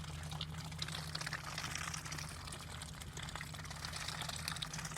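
Shallow muddy water splashing and trickling steadily, with many small wet clicks, as ducks dabble and splash in it.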